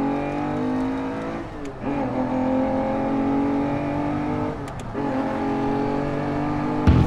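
An engine droning in three long stretches, each one sliding slowly down in pitch, with short breaks about a third and two-thirds of the way through.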